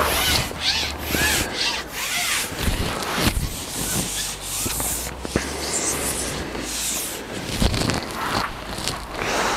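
Repeated rubbing and scraping noises, with a low wind rumble on the microphone in places.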